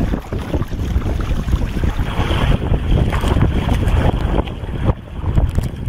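Strong, gusting wind buffeting the microphone over the wash of choppy, whitecapped sea, with a brighter rush of splashing water from about two seconds in. A gale the paddler reckons at a good 35 knots.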